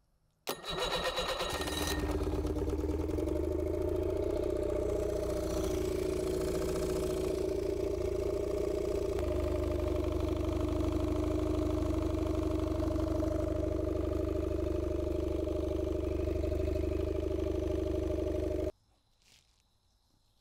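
Evinrude E-TEC 50 hp two-cylinder two-stroke outboard on flush muffs, starting about half a second in and then running steadily. The pitch shifts slightly about halfway through, and the engine stops abruptly near the end.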